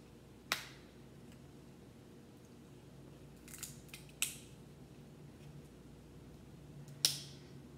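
Crab leg shell snapped and cracked apart by gloved hands: a few short, sharp cracks, one about half a second in, two around the four-second mark, and the loudest near the end.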